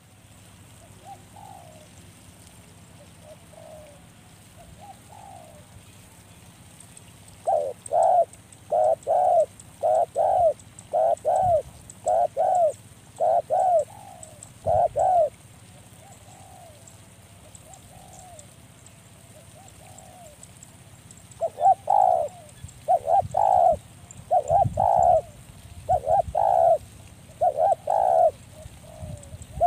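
Spotted dove cooing: two long runs of loud, evenly repeated coos, the first starting about seven seconds in and the second about twenty-one seconds in, with softer, fainter coos between them.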